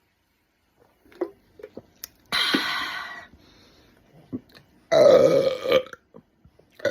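Person burping from drinking soda: two long burps of about a second each, about two and a half seconds apart, with a third beginning right at the end. A few faint clicks come before the first.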